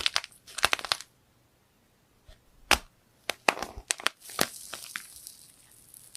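Crisp crackling and crunching of something brittle being crushed and pressed by hand: clusters of sharp snaps, a quiet gap of about two seconds, one single snap, then another run of crackles that tails off.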